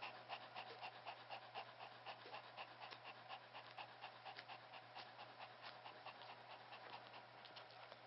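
Pomeranian-mix mother dog panting quickly and faintly, about five breaths a second.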